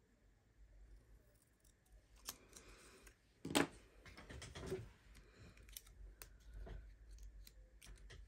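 Small fine-tip craft scissors snipping strips of patterned paper, faint short clicks and paper rustle, with a louder knock about three and a half seconds in as the strips are handled.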